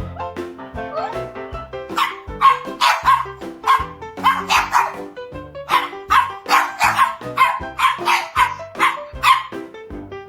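A dog barking over and over, about twice a second, over background music. The barking starts about two seconds in and stops shortly before the end.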